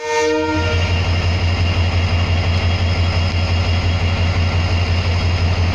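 EMD WDG4 diesel locomotive's 16-cylinder two-stroke engine running steadily with a heavy low rumble. A brief chord of several steady tones sounds at the very start and cuts off within the first second.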